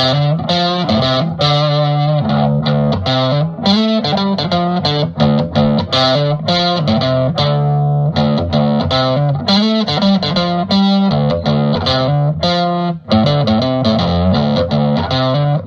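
Music led by electric guitar with some distortion, a busy run of changing notes at an even level.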